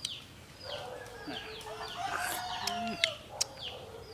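Chicken calling with one drawn-out call lasting about two seconds, over short, high, falling chirps repeating about twice a second, with two sharp clicks around three seconds in.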